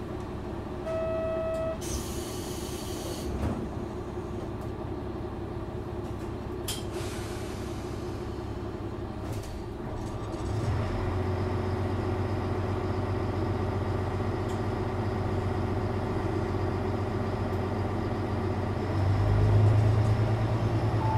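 JR Shikoku 1000 series diesel railcar standing at the platform with its engine idling, a steady low hum. A short beep comes about a second in, followed by two hisses of compressed air. The engine hum grows louder about halfway through and again near the end.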